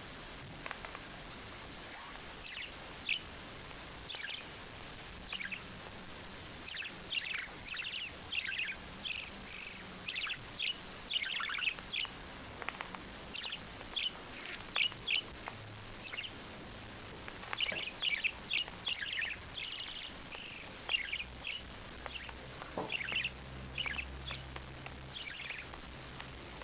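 A bird calling with short, high chirps in quick, irregular runs, many of them sliding sharply downward.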